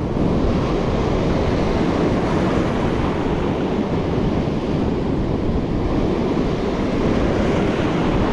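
Surf breaking and washing over shoreline rocks, with wind buffeting the microphone: a loud, steady wash of noise.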